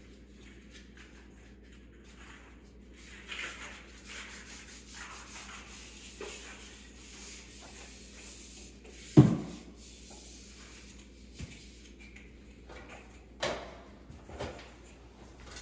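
Sanding on a patched drywall corner: a run of rasping strokes of abrasive on dried joint compound, broken by one sharp loud knock about nine seconds in and a couple of lighter knocks near the end.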